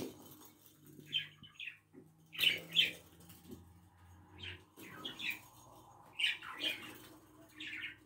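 Pet budgerigars chirping in short clusters of quick high chirps, about one cluster a second.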